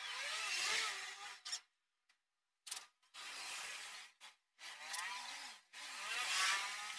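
Masking tape being pulled off the roll, about four long pulls of a second or so each with short gaps between, each a noisy tearing sound with a faint wavering squeal.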